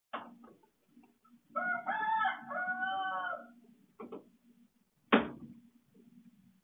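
A rooster crowing once, a drawn-out call of about two seconds, over a low steady hum. Sharp clicks come before and after the crow, the loudest about five seconds in.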